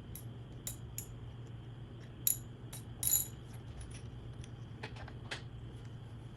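Scattered sharp metallic clicks and taps from a socket and wrench working the steel fork cap down onto the fork tube, a few of them louder about two to three seconds in, over a low steady hum.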